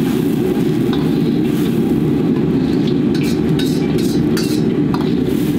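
Steady loud roar of a gas wok burner under a wok of boiling broth, with a metal ladle and perforated strainer clinking against the wok several times in the latter half.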